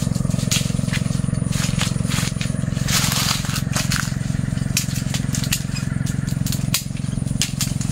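Dry jackfruit twigs and leaves crackling and snapping as branches are cut and handled with pruning shears, many short sharp clicks with a louder rustling crunch about three seconds in. A steady low motor hum runs underneath.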